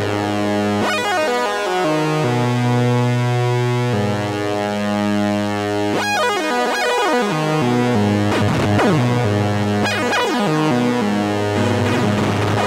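Eurorack modular synthesizer with three oscillators playing a quantized, looping arpeggio that is replicated and phase-shifted across them by a Make Noise MultiMod. Held pitches shift every second or two, with bright swept flurries of notes every few seconds.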